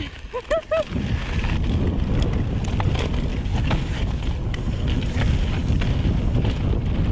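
Wind buffeting the microphone of a mountain bike's point-of-view camera, with tyres rumbling over a dirt trail, during a fast downhill run. Scattered sharp clicks and rattles from the bike as it goes over bumps.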